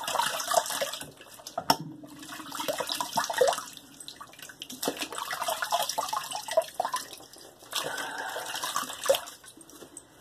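Water running from a tap and splashing in a sink as a safety razor is rinsed, in uneven surges, with a sharp click near the start.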